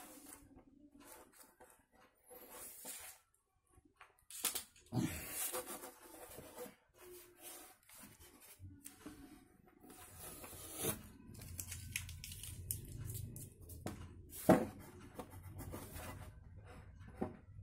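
A motorcycle's plastic body panel being handled and turned over by hand: irregular rustling, scraping and light knocks of plastic, with one sharper knock late on.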